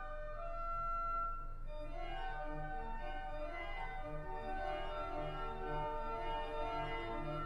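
Church organ playing held chords. About two seconds in the music grows busier, with moving notes over a pulsing bass line.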